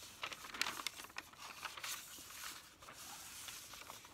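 Newsprint grocery flyers rustling and crinkling as they are handled, unfolded and turned over close to the microphone, with many small sharp crackles.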